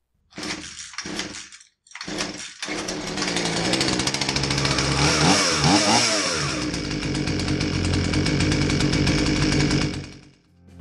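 Husqvarna 240 two-stroke chainsaw, freshly fitted with new fuel lines and air filter, starting after two short bursts, then running and revved up and down about halfway through before dying away near the end.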